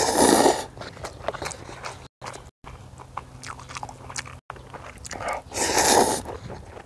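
Instant ramen noodles being eaten close to the microphone: two long, loud slurps, one at the start and one about five and a half seconds in, with chewing and small wet mouth clicks between them.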